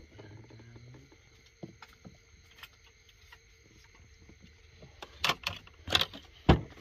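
A quiet stretch with a few faint ticks, then a cluster of about five sharp knocks and rustles in the last two seconds.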